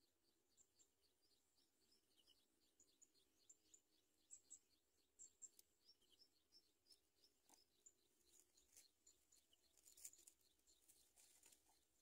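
Faint, high-pitched bird chirping, short calls a few times a second, with brief crackles of dry nest grass and leaves about ten seconds in as the greater coucal moves off the nest.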